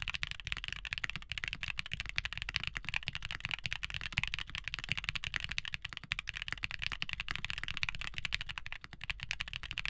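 Fast, continuous typing on a QK65 65% custom mechanical keyboard with stock, unlubed JWK Ms Piggy (Thic Thock ALS) linear switches, built with foams and an aluminium plate. Dense, rapid keystrokes with a very clacky sound.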